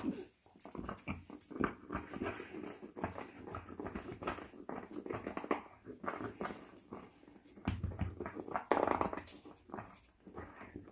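A French bulldog gnawing on a bone, with irregular clicks and scrapes of teeth on the chew and the dog's own noises mixed in. There is a louder stretch about eight seconds in.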